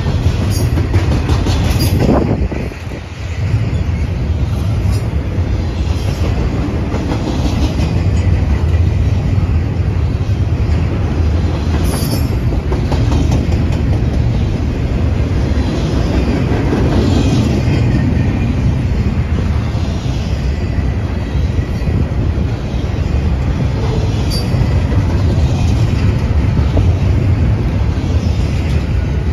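Double-stack container train of well cars passing close by: a steady rumble of steel wheels on rail with clatter from the cars, dipping briefly about two to three seconds in.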